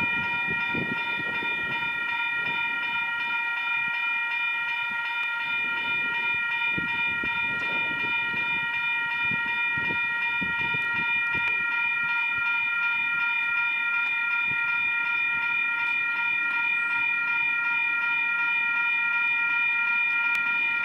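Railway level crossing warning bell ringing steadily, its strokes running together into one continuous ringing while the barrier arms are down: the crossing is signalling an approaching train.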